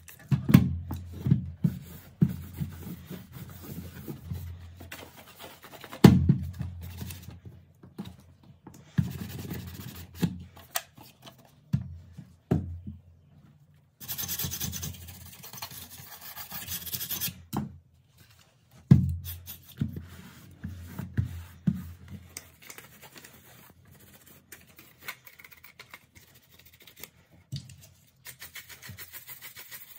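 Hands handling the metal casing of a computer optical drive, with repeated knocks and taps, and a toothbrush scrubbing its rear panel for a few seconds midway.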